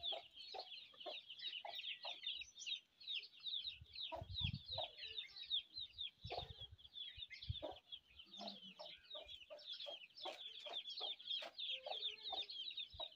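Chickens clucking with short repeated calls over a constant chorus of quick, high chirping in a farmyard.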